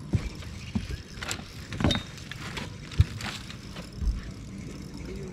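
Footsteps and knocks on a bass boat's deck as the landing net is picked up for a hooked fish, with a sharp knock about three seconds in standing out from the rest.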